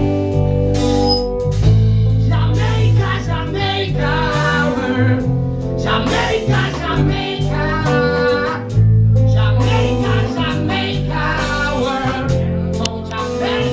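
Rock band playing live: electric guitars, bass guitar and drum kit, with a male singer. The singing is clearest in the middle, over a strong bass line.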